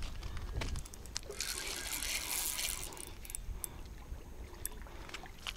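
A hooked asp splashing at the water's surface while being reeled in on a spinning rod: one burst of splashing lasting about a second and a half, starting a little over a second in, with a few small clicks around it.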